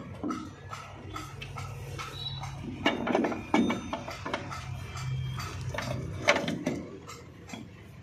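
Metal clinks and knocks as a countershaft with its gears is worked into place in a Mahindra 475 DI tractor gearbox housing, with a few louder knocks, the loudest about six seconds in.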